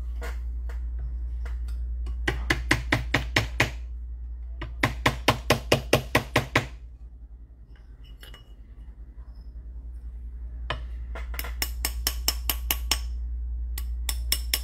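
A leather mallet tapping a ring on a steel ring mandrel to round an unannealed ring, in three quick runs of blows about six a second with light metallic clinks, and a few more taps at the end. A steady low hum runs underneath.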